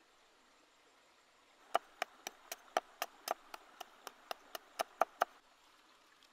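Cleaver chopping garlic cloves on a wooden chopping board: a run of about fifteen sharp, even chops, roughly four a second, starting a little under two seconds in and stopping about a second before the end.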